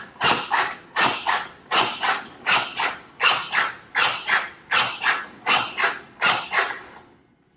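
Zoll AutoPulse mechanical CPR device running compressions: its motor cinches and releases the LifeBand around the manikin's chest in a steady rhythm of about 80 strokes a minute. Each stroke is a loud mechanical burst in two quick parts. The strokes stop near the end.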